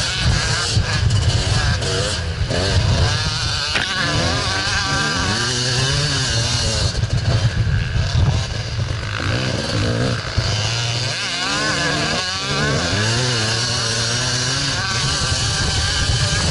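Dirt bike engine under way, its revs rising and falling again and again as the rider accelerates and shifts gears.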